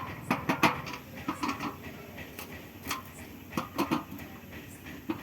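Irregular clicks and knocks, about a dozen spread unevenly, from the satellite dish and its stand being handled and fitted together.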